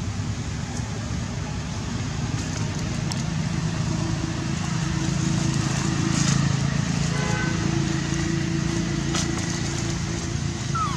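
A motor engine running steadily, growing louder toward the middle and easing off again.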